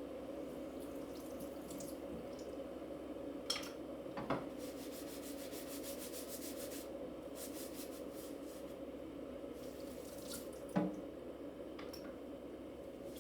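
Water running into a sink, with a few sharp knocks, the loudest near the end, and a quick run of light ticks in the middle.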